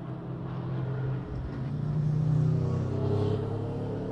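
Motorcycle engine on the race circuit, revving and changing gear, with the note dropping about a second in and then climbing. It grows louder to a peak a little past halfway.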